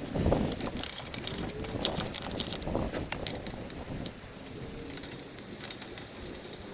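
Car being raised on a jack: scattered light metallic clicks and ticks with a faint creak.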